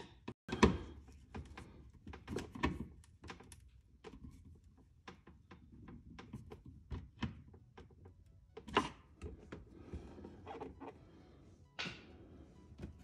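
Irregular knocks, taps and clicks of hand tools and plastic and carbon fiber parts being handled while a rear diffuser is fastened to a car's bumper, with sharper knocks just after the start and near nine seconds.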